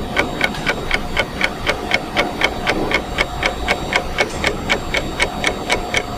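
A steady, rapid ticking, about five even ticks a second.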